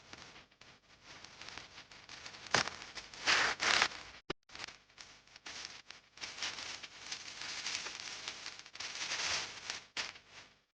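Packaging being handled and unwrapped, crinkling and rustling unevenly, with a few sharp clicks.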